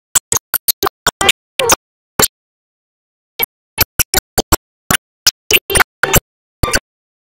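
Choppy, broken-up audio: dozens of brief snatches of sound, too short to make out, cut apart by gaps of dead silence, one lasting over a second about two seconds in. These are the dropouts of a damaged video file.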